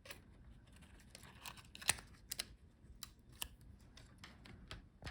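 Scattered small, sharp clicks and taps of hands and a tool working on the laptop's internal plastic and metal parts while disconnecting the keyboard ribbon-cable connector; the loudest click comes about two seconds in.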